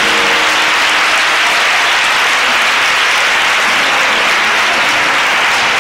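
Applause: many people clapping together in a dense, steady patter.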